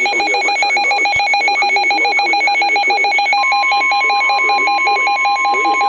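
Weather alert radio sounding its alert: a loud, rapidly pulsing electronic beep, about ten pulses a second. About halfway through, a steady single tone near 1 kHz starts, the 1050 Hz NOAA Weather Radio warning alarm tone that announces a warning.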